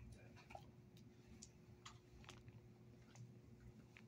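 Near silence: room tone with a steady low hum and a few faint, irregular clicks.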